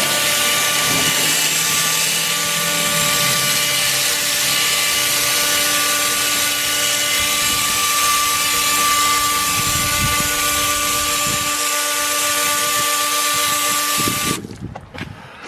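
Hose-powered Brush Hero spinning brush scrubbing an alloy car wheel: a steady whine from the water-driven rotating head over the hiss and spatter of spraying water, cutting off suddenly near the end.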